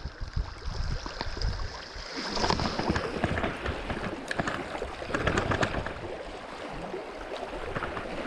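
Sea water lapping and splashing at the shore, with clusters of sharp crackles about two and five seconds in.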